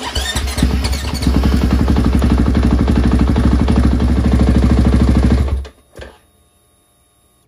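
KTM 500 EXC-F single-cylinder four-stroke engine fires up and idles with an even beat, then is shut off about five and a half seconds in.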